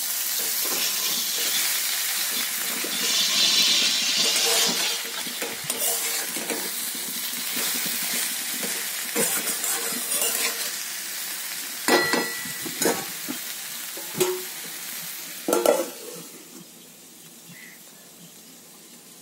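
Brinjal slices with onion and spices sizzling in a kadai while a metal spatula stirs and scrapes against the pan. Later come a few sharp metal clanks as a steel lid is set on, and the sizzle then drops to a faint hiss under the lid.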